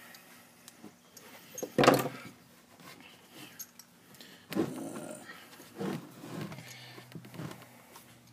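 Metal hand tools being handled on a workbench: a few clinks and knocks, the loudest about two seconds in, over a faint steady low hum.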